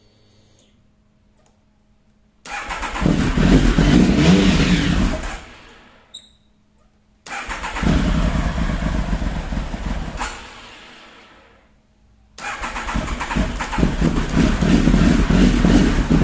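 Triumph Tiger motorcycle engine being started three times. The first two times it runs for a few seconds and then fades out; the third time it keeps running at the end. This is a motorcycle that will not stay running.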